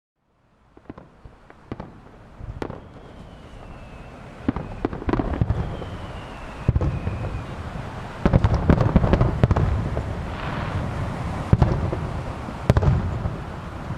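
Star mine fireworks barrage: scattered bangs at first, building to a rapid run of booms and crackling from about eight seconds in.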